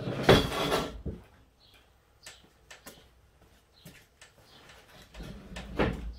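Rustling, rubbing and knocking as a folded canvas roof tent is shifted by hand on a pickup's rack. There is a loud burst in the first second, a few single clicks, and a second burst about five to six seconds in.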